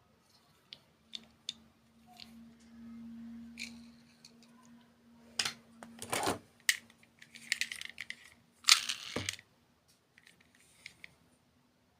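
Small clicks, taps and rattles of hard objects being handled, with louder clusters of clacks about five and a half seconds in and again near nine seconds, over a faint steady hum.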